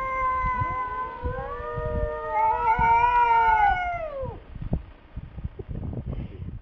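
Two cats yowling at each other in a standoff: two long, drawn-out wails overlap, one held steady and one rising and then falling, and both stop about four seconds in.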